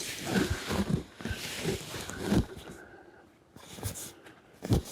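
Heavy yurt roof canvas rustling and flapping as it is flipped over the roof poles, with irregular thuds, dying down after about two and a half seconds, then a sharp thump near the end.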